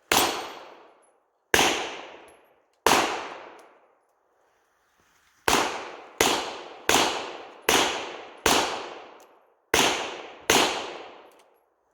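Black-powder 1851 Colt Navy .36 percussion revolver firing, ten shots with echoing tails. Three shots come about a second and a half apart, then after a pause seven more follow quickly, less than a second apart.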